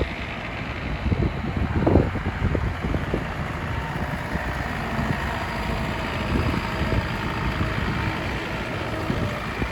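Bobcat 435 mini excavator's diesel engine running steadily, with a few brief knocks about two seconds in.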